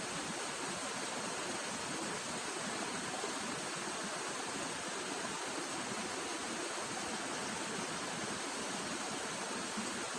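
Steady rushing of running water, like a stream flowing, an even hiss with no distinct events.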